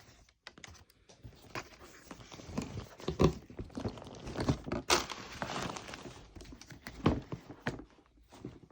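Handling sounds from a sneaker unboxing: scattered soft knocks and thuds, with a stretch of rustling and crinkling in the middle, as the shoes and their packaging are moved about.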